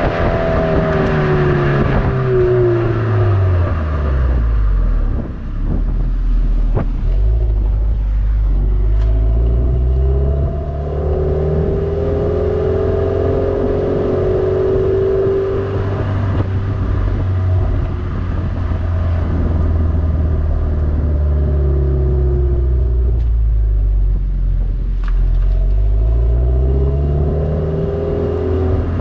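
Subaru BRZ's flat-four engine running through an HKS Legamax Premier cat-back exhaust. The engine note falls over the first few seconds, holds low and steady through the middle, and rises again near the end.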